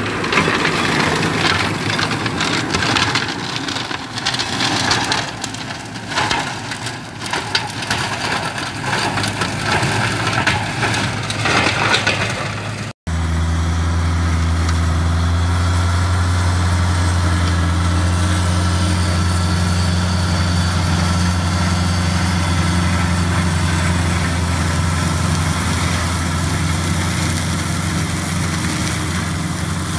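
Tractor engine driving an INO Elite flail mulcher, its rotor shredding vine prunings with a dense crackle of chopped wood. After a short break a little before halfway, a steady, even drone of the tractor and mulcher running through tall grass.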